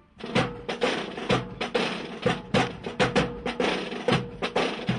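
Marching band drums beating a steady march cadence, sharp snare and bass drum strokes about three a second.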